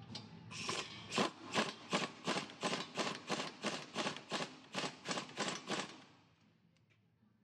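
Hand ratchet wrench clicking in short, quick strokes, about three clicks a second, as a hub bearing mounting bolt is turned out through the back of the steering knuckle; the clicking fades out near the end.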